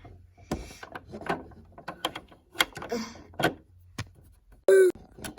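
Irregular sharp clicks and knocks of plastic toy pieces being handled and moved, about half a dozen of them, with a brief loud squeak near the end.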